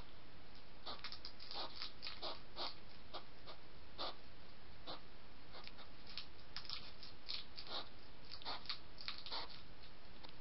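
European hedgehog foraging on gravel: irregular small clicks and crunches, some in quick clusters, over a steady hiss.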